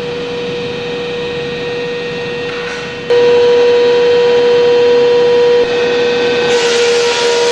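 Sawdust machine (wood crusher) running with a steady, even whine, becoming louder about three seconds in.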